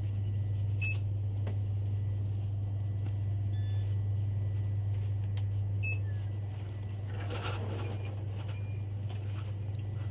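Shop background: a steady low electrical hum, with three short high electronic beeps a few seconds apart and a brief rustle about seven and a half seconds in.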